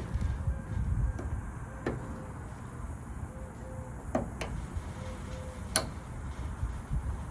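A few sharp clicks, four in all, with two close together and the loudest near the end, from handling a pickup's door lock cylinder and its small parts, over a low rumble.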